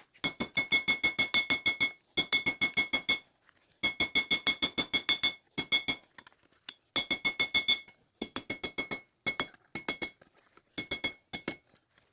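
Hammer striking hot coil-spring steel on an anvil, drawing out a knife handle: quick runs of ringing blows, about six a second, broken by short pauses.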